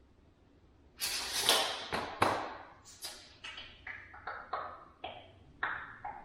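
A burst of clattering, then a run of sharp knocks about two a second, each with a short ring, as parts are handled and knocked during kitchen cabinet assembly.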